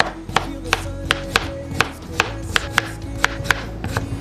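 Kitchen knife slicing a cucumber on a plastic cutting board: a sharp knock of the blade on the board about three times a second, over background music.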